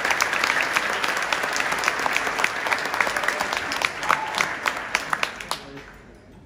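Audience applauding, the clapping fading away about five and a half seconds in.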